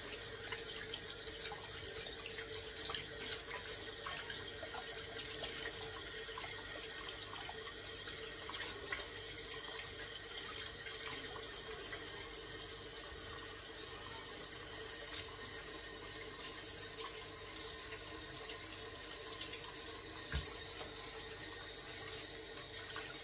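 Water running steadily from a kitchen tap into a sink, with small scattered clicks and knocks of things being handled under the stream.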